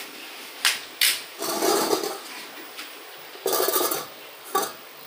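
Steel dog bowl knocked and scraped on a stone floor: two sharp clinks, then a few short scraping clatters.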